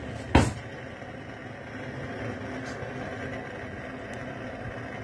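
A single sharp knock about half a second in, then the steady low hiss and hum of a gas stove burner running on a low flame under a pressure cooker.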